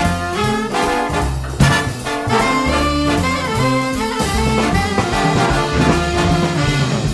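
Background music: a jazz tune played on brass instruments.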